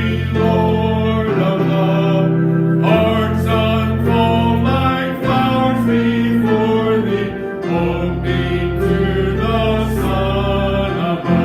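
Group of voices singing a gospel hymn over instrumental accompaniment that holds long, steady bass notes changing every few seconds.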